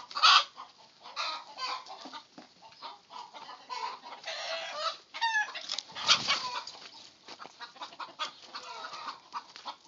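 Chickens clucking, with many short clicks and knocks mixed in.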